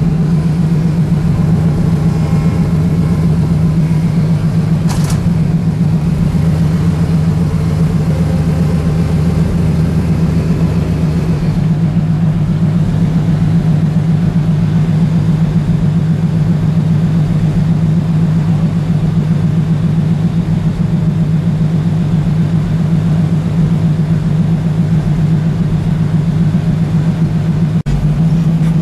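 Modified early Ford Bronco's engine running steadily at low revs as the truck crawls down a rough dirt trail, a constant low hum.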